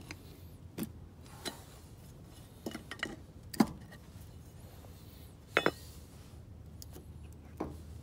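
A metal pry tool clinking and tapping against the steel drive flange of a Land Rover Series 2A front hub as the flange is worked loose around its edges. The sound is a string of separate sharp metallic clicks, loudest about three and a half and five and a half seconds in.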